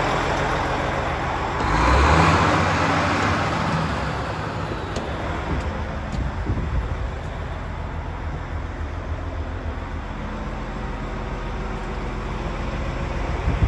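Volvo D13C 460 hp six-cylinder turbo diesel idling steadily, with a brief swell of rushing noise about two seconds in.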